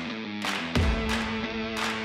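Background music with a steady drum beat and guitar, and a heavy bass drum hit about a second in.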